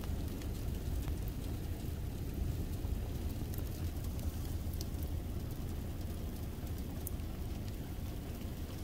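Steady low rumble of road traffic with a few faint, scattered ticks.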